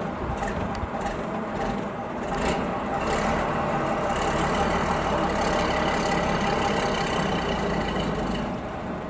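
Bus engine running, growing louder from about three seconds in and easing off near the end.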